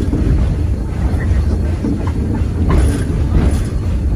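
Steam locomotive hauling passenger cars: the steady low rumble of the train rolling along the track, with a few clanks.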